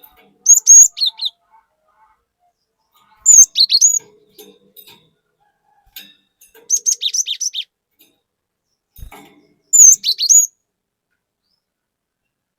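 Cinereous tit (glatik batu) singing in short, high, rapid chirping phrases: four bursts a couple of seconds apart.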